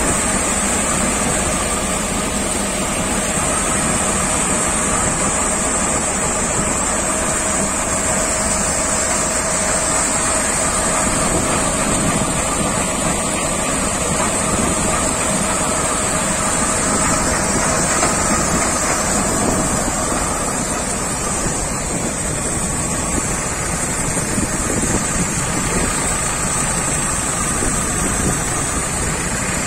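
Tractor-driven grain thresher running steadily while threshing, with its drum and fans giving a constant hum with a high steady whine over it, together with the tractor's engine.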